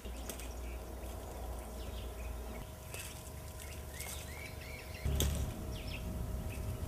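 Outdoor ambience: a low rumble throughout with a faint steady hum, a few short bird chirps about four seconds in, and a knock about five seconds in.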